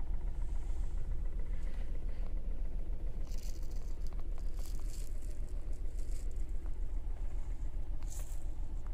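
Alfa Romeo 156 2.0 Twin Spark four-cylinder engine idling evenly on LPG, heard from inside the cabin. A few brief rustles come over it, the first about three seconds in and another near the end.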